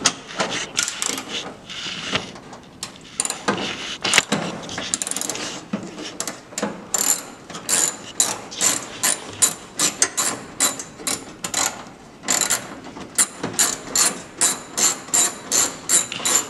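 Hand ratchet clicking as it is worked back and forth to loosen a fastener holding a truck headlight in place. The clicks are irregular at first, then settle into a steady run of about four a second in the second half.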